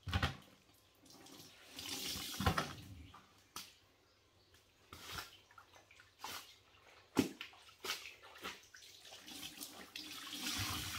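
Water splashing and dripping into a plastic mop bucket in irregular bursts as a soaked cloth is wrung out over it, with a few sharp knocks.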